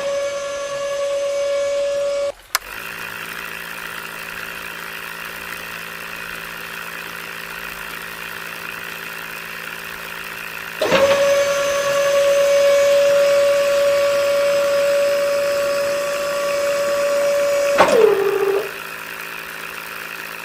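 Small electric motors of a homemade mini tractor and drill project running with a steady whine. A higher-pitched motor cuts off after about two seconds and a lower hum carries on. The higher whine starts again about eleven seconds in and slows and stops near eighteen seconds.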